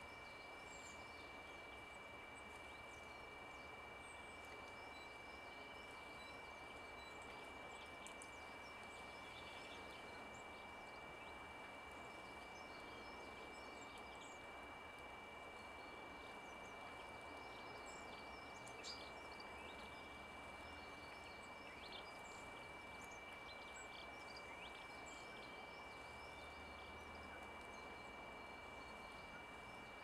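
Faint, scattered chirps of small songbirds over a steady background hiss, with a thin steady high tone underneath.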